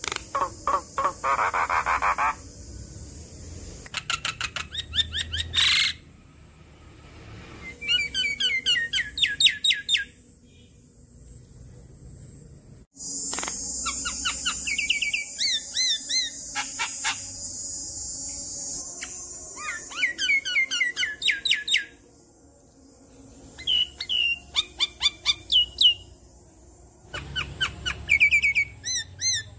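Javan myna singing a loud, varied song: bursts of fast repeated whistled notes alternating with harsh, hissing chatter, with short pauses between phrases.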